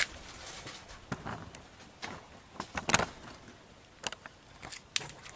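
Irregular light clicks and knocks of handling noise from a handheld phone camera, the loudest about three seconds in.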